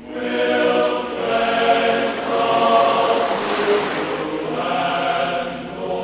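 Background music: a choir singing slow, held chords.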